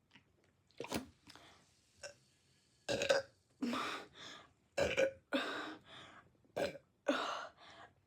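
A person burping over and over: a quick series of about a dozen short burps, the loudest near the middle.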